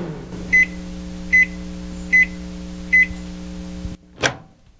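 Microwave oven running with a steady hum while beeping four times at an even pace, a short high beep about every 0.8 seconds. The hum cuts off about four seconds in, followed by a single short knock.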